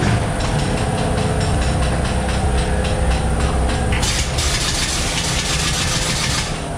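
Ghost train ride car rumbling and rattling along its track, with a fast, regular run of clicks. About four seconds in, a loud hiss starts and lasts about two and a half seconds.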